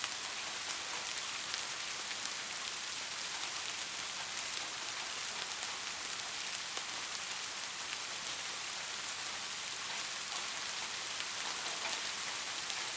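Steady white-noise hiss with a rain-like sound and faint scattered ticks like falling drops; it cuts off suddenly at the very end.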